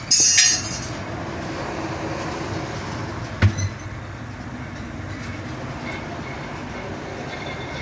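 A short hissing blast of air at the start, then one sharp metallic clank about three and a half seconds in, over a steady low mechanical rumble, as truck tyres are worked on.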